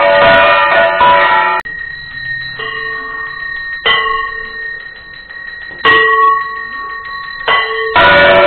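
Small brass hand bell (puja ghanta) rung rapidly and continuously for aarti, a dense metallic ringing whose loudness jumps abruptly between louder and quieter stretches.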